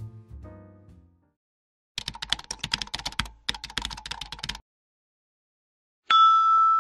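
Keyboard-typing sound effect: rapid clicks for about two and a half seconds in two runs with a brief break, after the last notes of background music die away. Near the end a loud, steady ringing tone starts suddenly.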